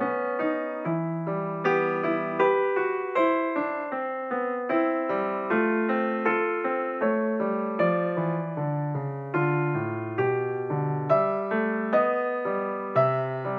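Background piano music: struck notes and chords, each dying away as the next one comes in.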